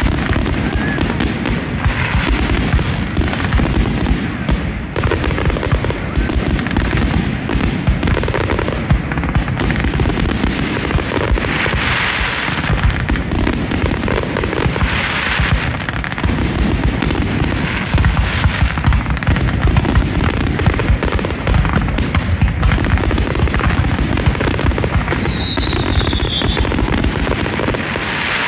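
Fireworks finale: a dense, continuous barrage of aerial shells bursting and crackling overhead, with a short falling whistle near the end.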